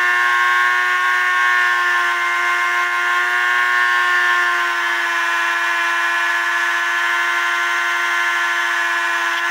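Dremel rotary tool spinning a wire brush at high speed with a steady high whine, the brush scrubbing a clock escapement wheel held against it in the fingers.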